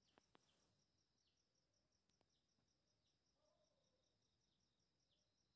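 Near silence, with only a very faint, evenly repeating high chirping in the background.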